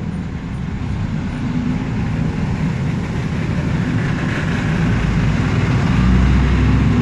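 Low rumble of a motor vehicle engine that grows steadily louder, loudest near the end.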